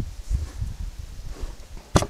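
An animal nosing and rubbing against a trail camera: a run of low, muffled bumps and scuffs on the housing, with one sharp knock near the end.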